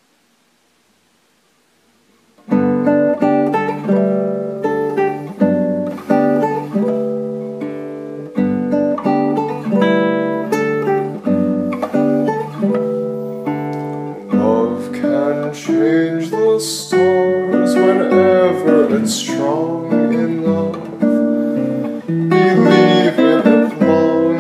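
Solo acoustic guitar playing chords and melody together, coming in about two and a half seconds in after near silence.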